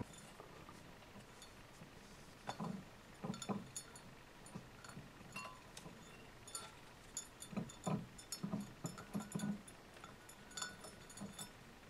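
Faint, scattered light clicks and taps, with a few soft low knocks among them, irregular and in small clusters.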